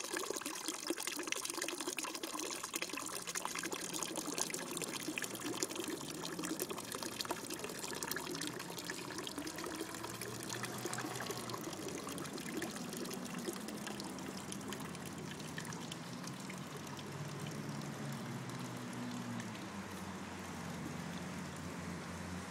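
A thin jet of water from a frog-figure fountain spout trickling and splashing steadily into a small garden pond, softer in the second half.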